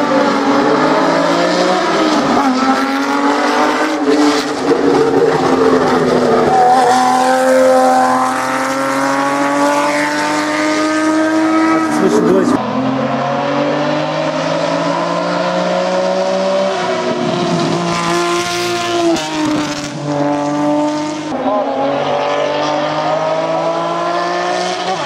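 Datsun 280Z race car's straight-six engine running hard under load. The revs rise steadily in long pulls and drop sharply twice, about twelve and nineteen seconds in, before climbing again.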